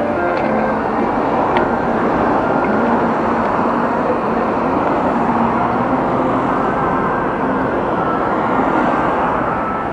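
Steady road noise heard while riding a bike along a road: a continuous rushing of traffic and moving air with no breaks.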